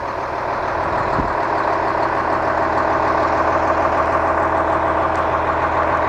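Cummins 8.3-litre ISC inline-six diesel of a Blue Bird All American bus idling steadily.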